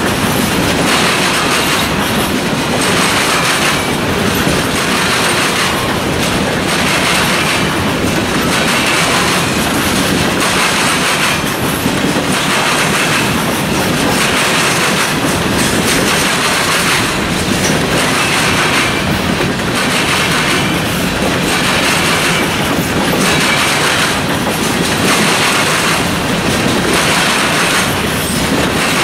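A long freight train of covered hopper cars rolling past, wheels clattering over the rail joints with a repeating beat every one and a half to two seconds over a steady rumble and rattle of the cars.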